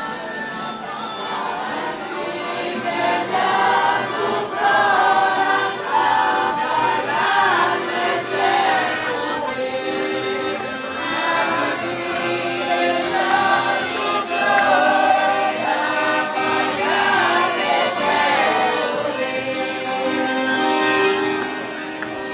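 A group of voices singing a folk song together, with piano accordion accompaniment.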